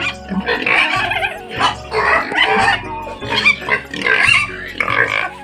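Pigs squealing over background music with a steady beat.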